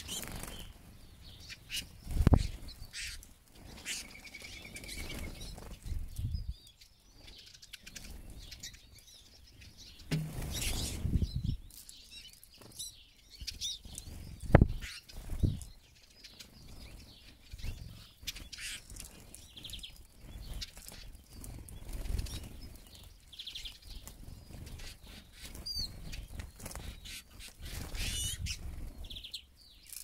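Eurasian siskins' wings fluttering close by as they fly in to land on and leave seed feeders, in several short flurries, the loudest a couple of seconds in and around the middle. Scattered high chirps and twitters and a short trill come between the flurries.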